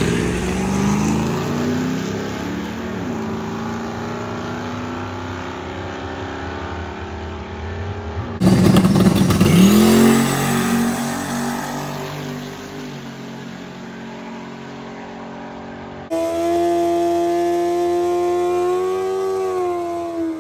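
Drag-racing vehicle engines heard in three cut-together pieces: an engine running and fading away, then about eight seconds in a loud burst as an engine revs up with a rising pitch, then from about sixteen seconds a steady engine tone whose pitch lifts briefly near the end.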